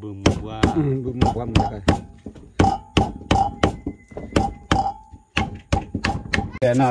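A large kitchen knife chopping a bundle of lemongrass stalks on a chopping block: a steady run of quick, sharp chops, about three a second.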